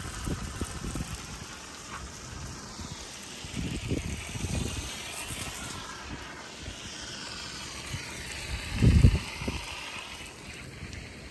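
Garden hose spraying water in a steady hiss that shifts as the stream moves. Wind buffets the microphone in low rumbling gusts, strongest about nine seconds in.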